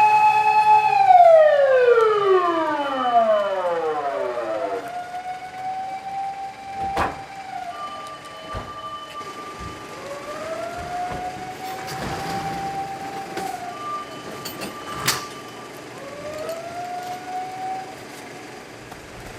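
Japanese fire engine sirens. A loud wail holds, then winds down steadily over about three seconds. A fainter siren then winds up, holds and drops three times, with a steady higher tone between the wails, and a few short knocks.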